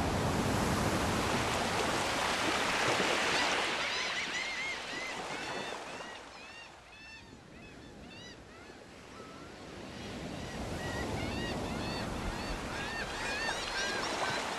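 Surf from a rough sea, with waves breaking, loudest in the first few seconds and then fading away. Many short, high bird calls follow, repeating again and again over faint water noise until near the end.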